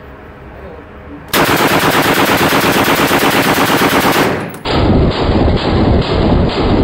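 A World War II MP40 9mm submachine gun firing full auto. A long rapid burst starts about a second in and lasts about three seconds. After a brief break the firing resumes, sounding duller, and carries on.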